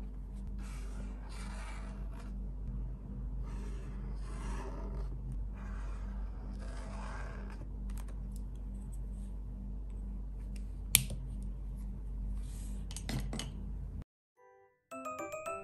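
A felt-tip highlighter marker rubbed across journal paper in a series of short scratchy strokes, over a steady low hum. Scattered light clicks follow, with one sharp click about eleven seconds in. The sound then cuts off, and light mallet-percussion music starts near the end.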